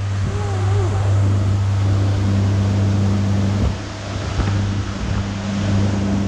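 A small motorboat's engine running steadily at cruising speed: a constant low drone, with wind and water rushing over it as the boat moves.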